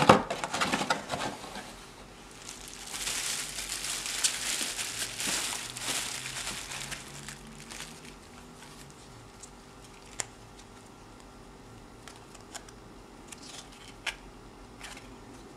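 Cardboard packaging being handled with knocks and rustling, then a plastic bubble-wrap bag crinkling for several seconds as the camcorder comes out of it. After that there is quieter handling with a few small clicks.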